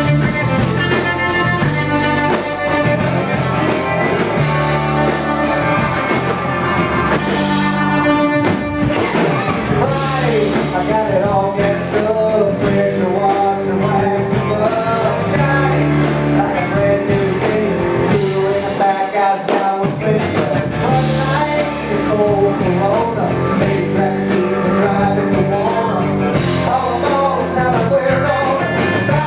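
Live rock band playing, with electric guitars, bass, keyboard and drum kit, and a singer's voice over the band.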